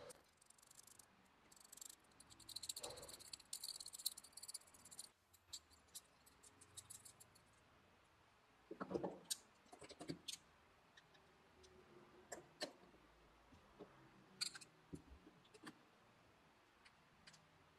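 Small metal hardware and hand tools handled up close: a scraping, rattling stretch a few seconds in, then scattered light metal clicks and taps as a pin is fitted into a small metal block and worked with pliers and a screwdriver.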